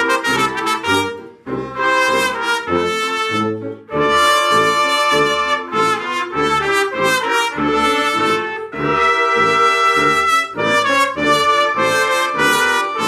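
A trumpet ensemble playing a lively tune in unison, with a tuba on the bass line. Quick detached notes in short phrases, with brief breaks about a second and a half in and again near the middle.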